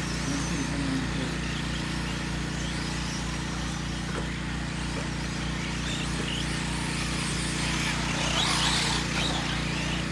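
Electric 4x4 RC short course trucks racing on a dirt track, their motors whining up and down as they accelerate and brake, busiest about eight seconds in. Under them runs a steady low hum.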